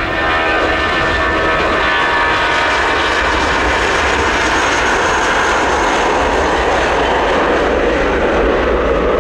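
Airbus A320's IAE V2500 turbofan engines at takeoff power as the jet rolls past down the runway: a loud, steady roar with a whining tone that falls slightly in pitch as it goes by.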